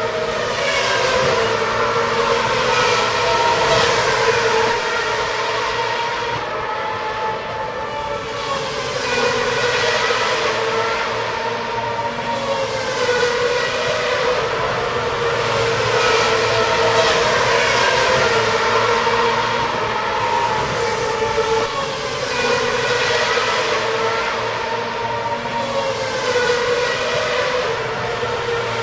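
Racing cars' high-revving engines passing one after another: a continuous blend of engine notes whose pitch sweeps up and down every few seconds.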